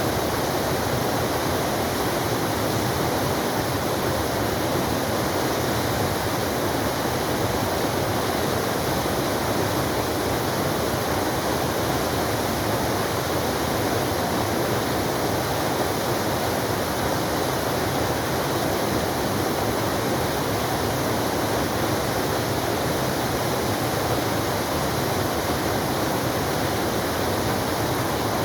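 Forest waterfall, water falling and splashing in a steady, unbroken rush.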